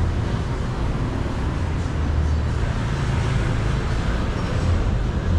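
City street traffic: a steady low rumble of vehicle engines and road noise.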